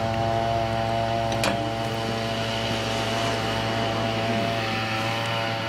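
A machine running with a steady, unchanging hum, with a single light click about a second and a half in.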